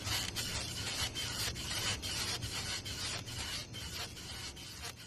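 Rapid rubbing strokes, about four a second, with a rough rasping sound, fading away toward the end.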